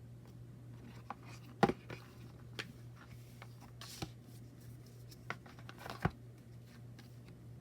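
Oracle deck cards and their box being handled: a few sharp taps and knocks, the loudest about a second and a half in, and a brief slide of card on card around four seconds in, over a faint steady low hum.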